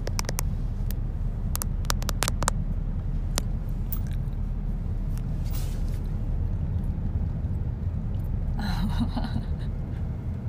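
A run of sharp clicks and taps made right at a phone's microphone in ASMR style, over a steady car-cabin road rumble. The clicks fill the first few seconds. A brief giggle comes near the end.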